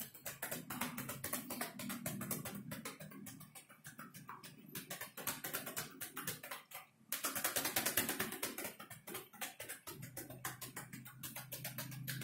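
Rapid percussive hand strikes from a masseur's chopping and tapping on a man's upper back and shoulders, several blows a second in an even rhythm, with a brief pause about seven seconds in.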